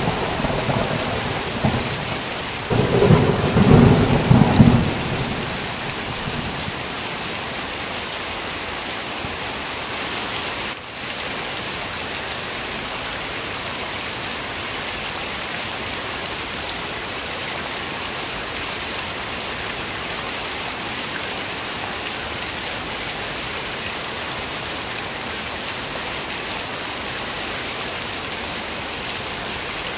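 Heavy rain falling steadily, with a roll of thunder a few seconds in that rumbles for about two seconds and dies away, leaving only the even hiss of the downpour.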